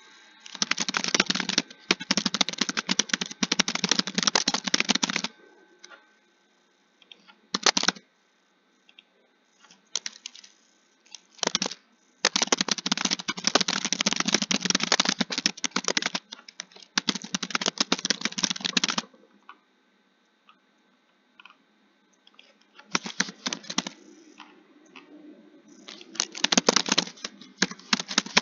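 Computer keyboard being typed on in fast runs of keystrokes, each a few seconds long, broken by pauses with only scattered single key presses.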